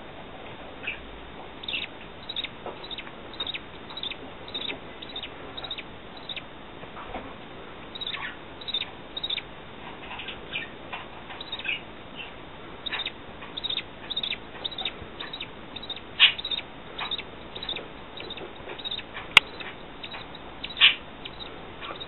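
Newly hatched budgerigar chicks cheeping in a steady, irregular run of short, high chirps, roughly one or two a second, as they beg to be fed. One sharp click sounds near the end.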